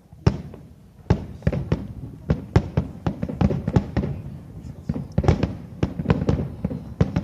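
Aerial firework shells bursting: one bang just after the start, then from about a second in a rapid, overlapping barrage of bangs.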